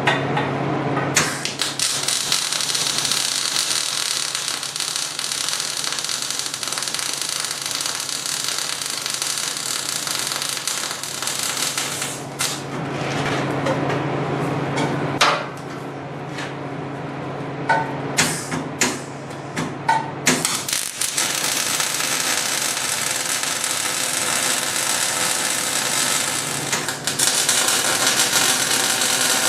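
Arc welding on steel plate and pipe: the arc crackles and hisses in long runs over a steady low hum. In the middle there is a pause of several seconds filled with a series of sharp metal knocks and clicks.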